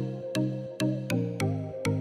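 Background music: a steady run of sharply struck pitched notes, about two or three a second, with a melody on top.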